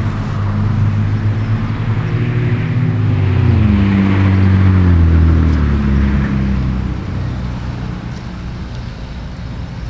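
A motor vehicle driving past, its engine note dropping in pitch as it goes by; it is loudest about halfway through and fades out after about seven seconds.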